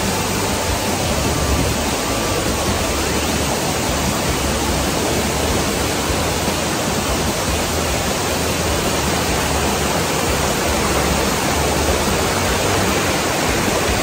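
Loud, steady rush of whitewater: a curtain waterfall and the strong river current tumbling over boulders close to the microphone.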